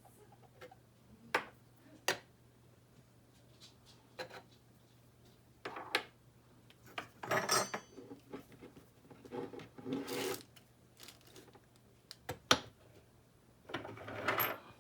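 Handling noises: scattered sharp clicks and knocks with several short rubbing, scraping sounds, the loudest a sharp click about twelve seconds in.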